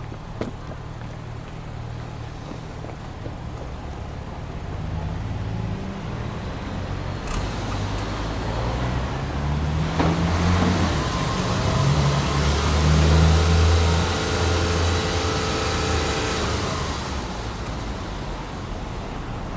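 Exhaust note of a Subaru Impreza Anesis 2.0i-S's 2.0-litre flat-four (boxer) engine at the tailpipe, being free-revved with no load. It idles at first, then the revs climb in steps to a peak a little past the middle and fall back toward idle near the end.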